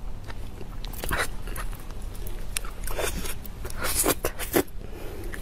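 Close-miked eating sounds: wet chewing and lip smacks, with a few sharp smacking or sucking noises about one, three, four and four and a half seconds in.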